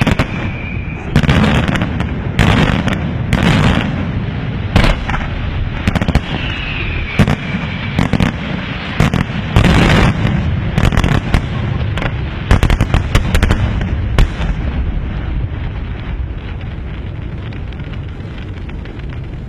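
Aerial firework shells bursting in quick succession, sharp bangs mixed with crackling, with two short falling whistles. The barrage thins out about fourteen seconds in and dies away to a low, fading rumble.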